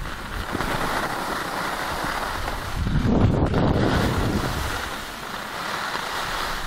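Skis sliding and scraping over packed snow, with wind buffeting the microphone; the rush swells louder about three seconds in.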